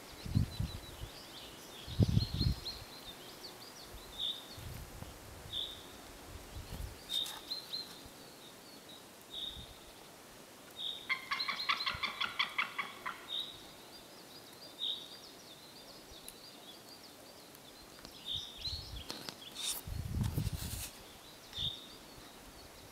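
White-tailed eagle calling in alarm at a person near its nest: a rapid run of yelping notes lasting about two seconds, about eleven seconds in, among short high bird notes repeated every second or two. A few dull thumps, the loudest near the start and near the end.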